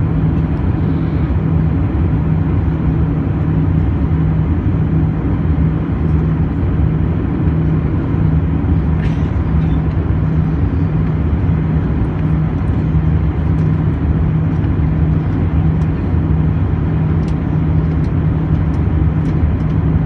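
Steady cabin noise of an Airbus A319 airliner in flight: a constant low drone of engines and airflow with a strong low hum, with a few faint ticks near the end.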